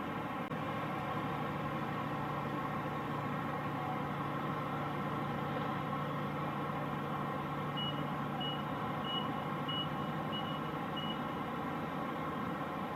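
A large vehicle's engine running with a steady hum, and a reversing alarm giving six short, high beeps about a second and a half apart, starting a little past the middle.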